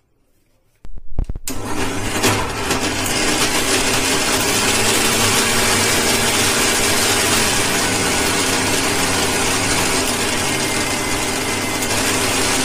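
Bajaj food processor's motor starting about a second in and running steadily, spinning the blades in its stainless steel grinder jar to grind boiled dry mango powder, jaggery and water into a wet chutney paste.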